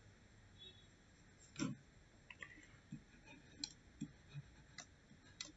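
Near silence with faint, scattered clicks and taps, about eight over a few seconds, from handwriting letters on a computer drawing screen.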